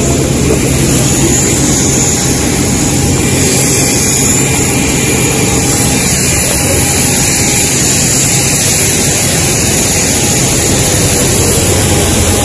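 Jet airliner noise on an airport apron: a loud, steady rumble with a thin high whine running over it, unchanging throughout.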